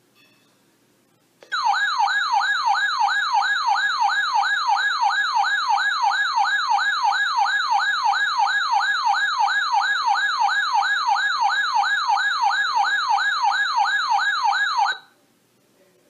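Weather alert radio sounding its warning alarm: a loud electronic warbling tone sweeping up and down about three times a second, starting about a second and a half in and cutting off abruptly near the end. It signals a warning-level alert, here a Flash Flood Warning.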